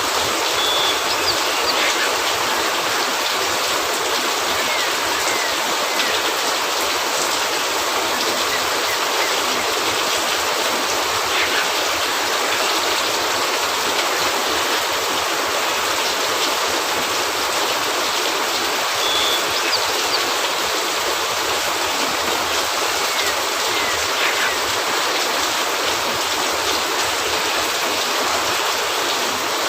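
Steady rain falling on a cabin roof, an even, unbroken hiss.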